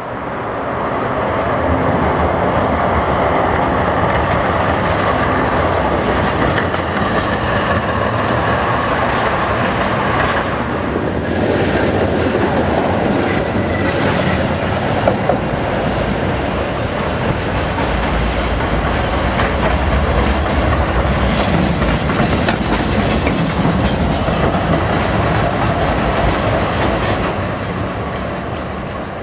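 A tram passing close by on street track, its steel wheels running and clattering on the rails. The noise builds over the first couple of seconds, holds steady, and fades near the end.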